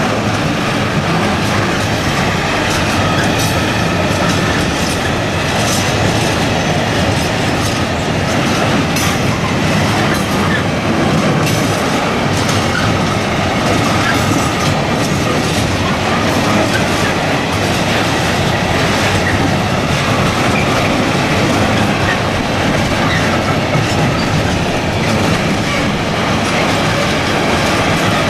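Freight train of open coal wagons (Eaos gondolas) rolling past at steady speed: a continuous wheel-and-rail rumble with rapid clickety-clack as the wheelsets cross rail joints.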